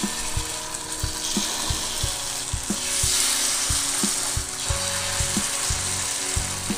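Masala-coated murrel (snakehead) fish slices sizzling in shallow oil on an iron tawa as more slices are laid in, the sizzle growing louder about three seconds in.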